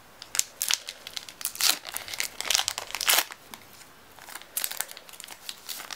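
Foil wrapper of a Pokémon trading card booster pack being torn open and crinkled by hand, an uneven run of crinkles and rips that eases off around two-thirds of the way through.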